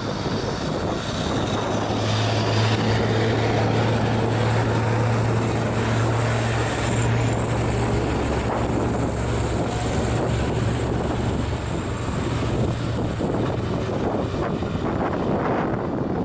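Heavy diesel truck engine pulling hard up a steep climb: a steady low drone that swells about two seconds in and eases off near the end, with a thin high whine above it.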